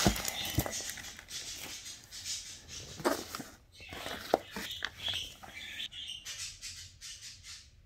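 Clear plastic bag crinkling and nylon stuff sacks rustling as they are handled and moved about inside a cardboard box, with a few light knocks.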